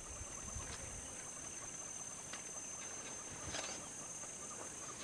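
Quiet bush ambience: a steady high insect drone with faint chirping, and a soft click about three and a half seconds in.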